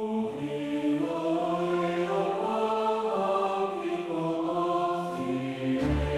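AI-generated choral music in a slow cantata style: a choir sings long, held notes that move slowly in pitch. A deep low part comes in near the end.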